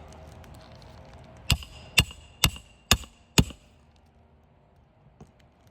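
Hammer driving a roofing nail into an asphalt shingle: five sharp blows, about two a second, each with a short metallic ring.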